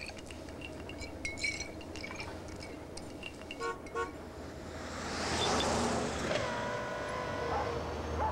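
A car horn sounds two short toots, then a rush of noise swells and the horn is held in one long blast, over the low hum of a car engine.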